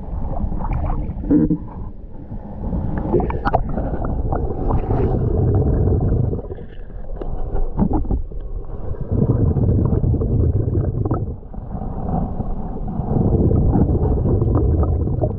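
Muffled underwater water noise picked up by an action camera in its waterproof housing: water sloshing and rumbling around the camera and the swimming snorkeler, in surges every few seconds.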